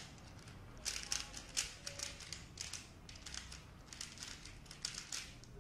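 Dayan ZhanChi 3x3 speedcube being scrambled by hand: quick, irregular plastic clicks and clacks of its layers turning, in clusters with short pauses.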